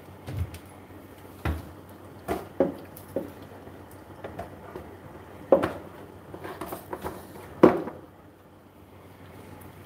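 Kitchen knocks and clatter: about seven short, sharp clunks of cupboard doors and dishes being handled, the loudest a couple of seconds before the end.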